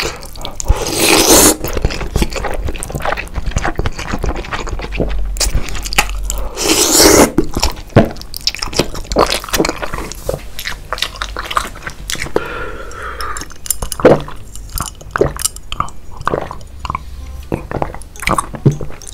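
Crunching and chewing sounds: a dense, irregular run of crunches and clicks, with louder bursts about a second in and again about seven seconds in.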